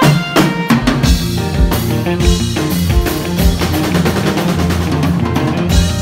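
Live band playing an instrumental rock jam: a drum kit to the fore with a steady kick-drum beat, under electric guitar and saxophone. A full-band accent hits right at the start.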